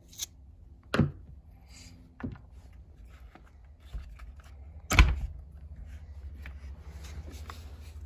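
Hand-work on a spark plug boot and its wire with a screwdriver: a few sharp clicks and knocks, the loudest about five seconds in, with quieter rustling between them over a low steady hum.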